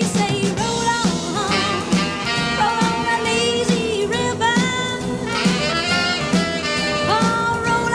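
Upbeat swing-style background music with horns and a steady beat.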